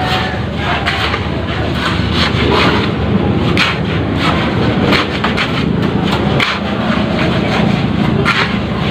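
Steel shovel scraping and chopping into a pile of sand mix in repeated strokes, with sharp scrapes and knocks, over a steady low rumble.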